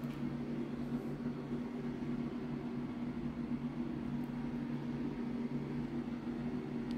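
Bathroom ceiling exhaust fan running with a steady hum and a faint hiss, heard in a small tiled room.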